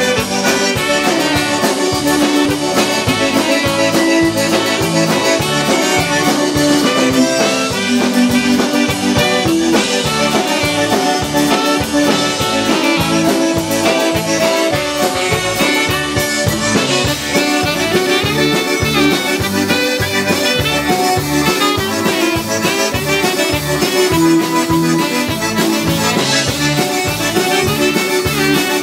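Live band music led by a button accordion, with saxophone, electric bass and drum kit keeping a steady beat.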